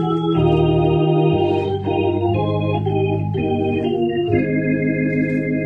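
Organ playing slow held chords, the chord and bass note shifting about once a second.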